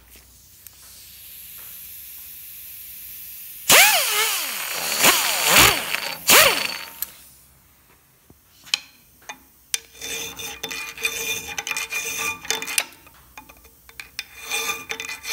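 Steel plate clamped in a bench vise being worked with a hammer and a punch or chisel, to break out a chain-drilled flange: a few loud metal strikes with ringing about four to seven seconds in, then a run of lighter clinks and taps with the steel ringing.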